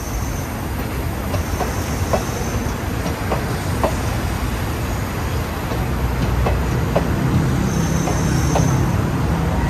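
A train running on rails: a steady low rumble with wheels clicking over rail joints about once a second and brief high wheel squeals, growing slowly louder.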